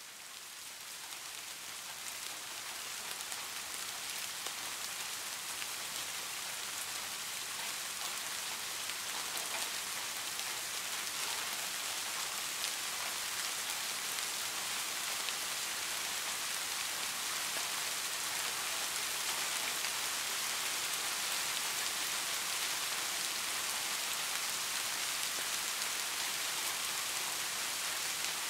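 Steady rain: a dense, even hiss with fine ticks of individual drops. It fades in over the first few seconds, then holds level.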